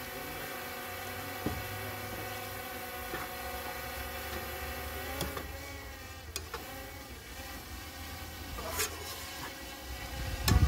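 A spatula stirring curry in a frying pan on a portable gas stove, with a few sharp clicks of the utensil against the pan and a louder knock near the end, over a steady background hum.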